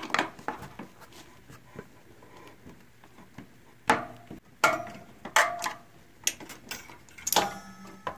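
Metallic clicks, taps and clatter of a T-handle hex key and a stock mechanical disc brake caliper as its mounting bolts are undone and the caliper is lifted off the rotor, in scattered clusters with a short metallic ring near the end.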